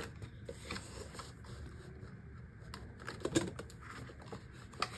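Paper banknotes and a vinyl cash-envelope binder pocket being handled: soft rustling with a few light clicks and taps, the sharpest a little past three seconds in.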